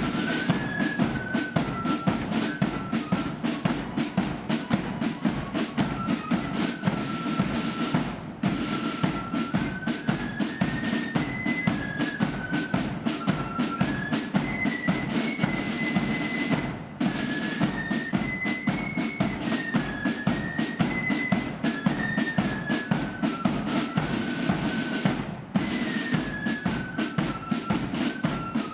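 Marching flute band playing a tune: flutes carry a high melody over fast snare-drum rolls and a steady bass drum beat, with three short breaks in the sound.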